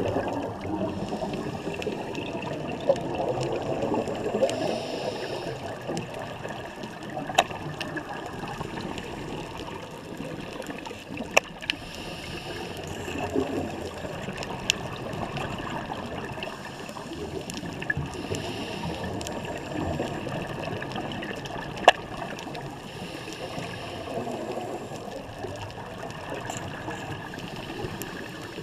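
Underwater ambience from a scuba diver's regulator: a bubbling rush of exhaled air every several seconds over a steady watery background. A few sharp clicks stand out, the loudest about 22 seconds in.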